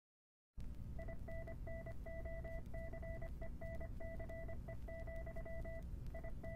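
An electronic beep tone switching on and off in an uneven pattern of long and short beeps, over a low rumbling hum. The hum starts just after a brief silence and the beeping about a second in.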